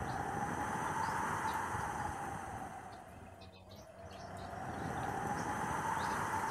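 Tropical-storm wind gusting through coconut palms and trees, a rushing noise that swells and eases twice.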